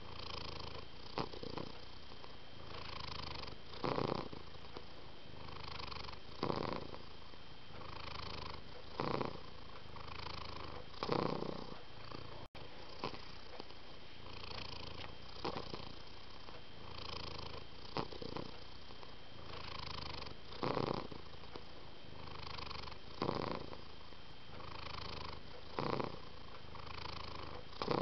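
Domestic cat purring steadily, swelling with each breath; the louder pulses come about every two and a half seconds.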